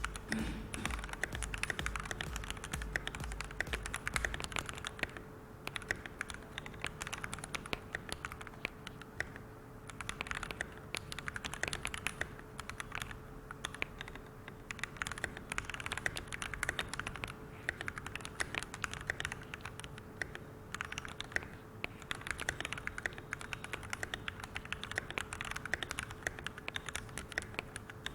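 Typing on an FL-Esports CMK68SAM mechanical keyboard with Kailh Box Cool Mint switches: a dense, continuous clatter of keystrokes, broken by brief pauses every few seconds.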